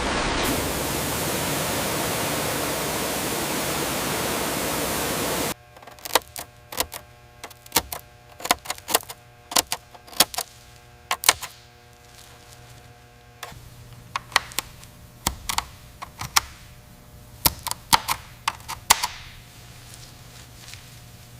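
A steady hiss that cuts off suddenly about five seconds in. It is followed by irregular sharp clicks and taps over a faint steady hum.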